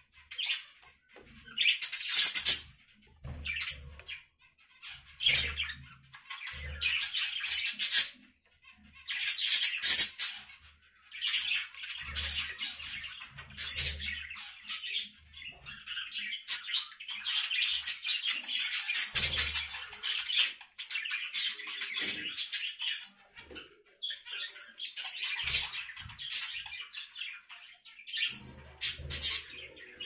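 Many small cage birds chirping and chattering together in dense, overlapping bursts with brief lulls, including some harsher squawky calls.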